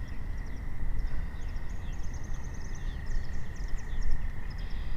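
Outdoor ambience: a steady low rumble, with many small birds chirping over it and a thin, steady high-pitched whine.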